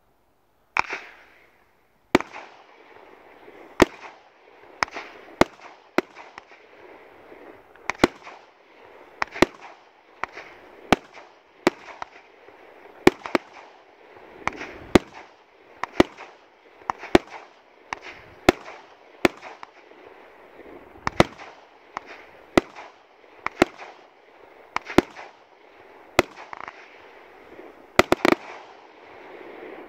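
Ghengis Fireworks Category 4 firework cake firing: a run of sharp bangs, about one a second, with a hiss between the shots. The bangs start about a second in, and a quick cluster of reports comes near the end.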